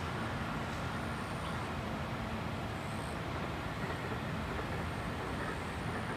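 Steady low rumble of distant vehicles, with a few faint high-pitched tones coming and going.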